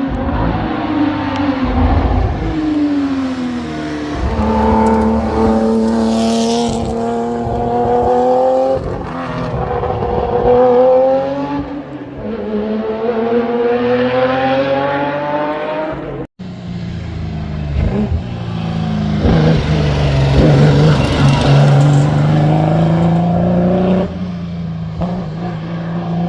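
Historic racing car engines revving hard and accelerating through the gears, the pitch climbing and dropping at each shift. About two-thirds of the way through the sound breaks off abruptly and a lower, steadier engine note follows.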